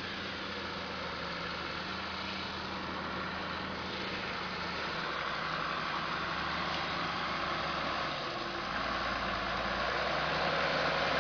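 Truck engine running at low speed as the truck crawls closer over muddy ground, growing steadily louder; its note shifts lower about eight seconds in.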